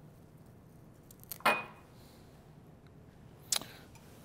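A few light clinks and taps of kitchen dishes and utensils against each other or the counter, the loudest about one and a half seconds in with a short ring.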